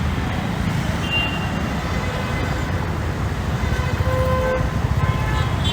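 Road traffic noise: a steady low rumble of vehicles, with a brief faint horn toot about four seconds in.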